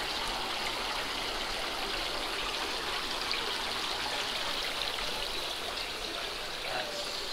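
Water jetting from spray bars into a circular fish-hatchery tank, splashing steadily onto the surface.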